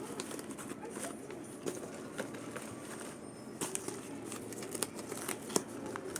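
Light rustling of plastic packaging with scattered small clicks and taps as small parts are handled.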